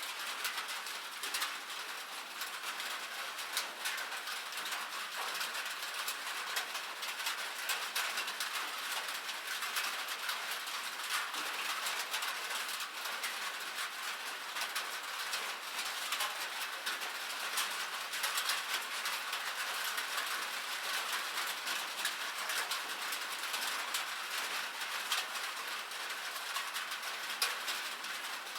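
Steady rain falling on a cabin roof: an even hiss dotted with a dense scatter of small drop ticks.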